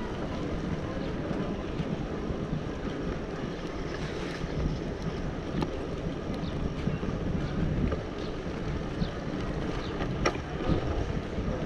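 Steady wind rumbling on the microphone, with a few short clicks, the sharpest about ten seconds in.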